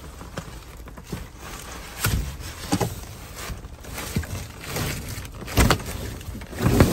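Rummaging by hand through bagged trash: plastic and bubble wrap crinkling, with several knocks and thumps from items being moved, the heaviest ones near the end.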